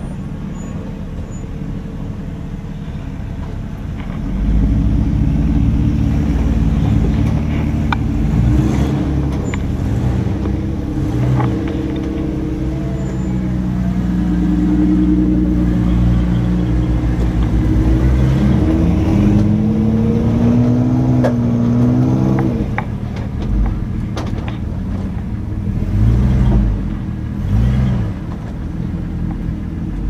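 Jeep Wrangler's engine idling, then from about four seconds in working harder, its revs rising and falling as it crawls up a rocky ledge. A few sharp knocks come through along the way.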